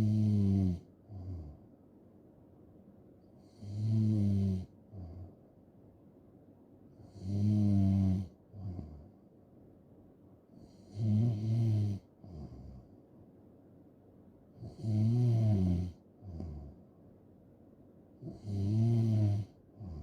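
A sleeping person snoring in a slow, even rhythm: six loud snores, each about a second long and coming roughly every three and a half to four seconds, each followed by a brief, softer breath sound.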